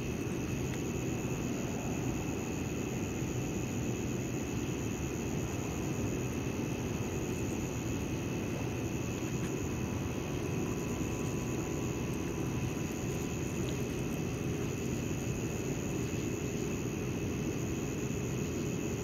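Steady low roar of constant background noise, with faint unchanging high tones above it and no separate knocks or clicks.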